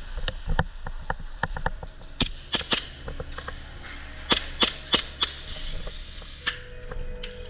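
Airsoft guns firing single shots: a string of sharp snaps, several in quick groups of two or three.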